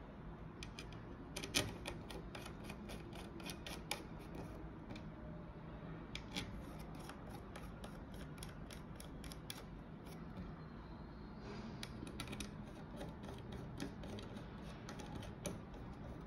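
Small thumb screws being placed and turned by hand through a stacked adapter circuit board into a hard drive: a quiet string of clicks and light scraping.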